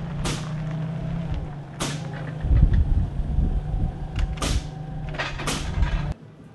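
A motor running steadily with a low hum, with several sharp knocks or clacks over it. The sound cuts off abruptly near the end.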